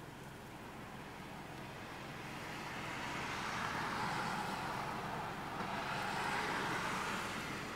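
A passing vehicle: its rushing noise swells for a few seconds, peaks, and fades near the end, over a steady low hum.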